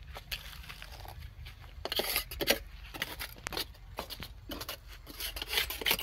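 Irregular scrapes and knocks of hand tools on a freshly cast concrete ring and its steel mould: a small trowel smoothing the wet concrete top, then a T-handle key working the mould's lock.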